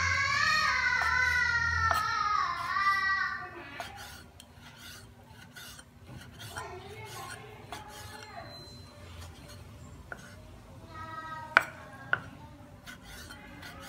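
A cleaver slicing raw beef on a wooden chopping board: soft, irregular knocks and scrapes of the blade through meat onto the wood, with two sharp, louder chops near the end. A high voice calls out over the first few seconds.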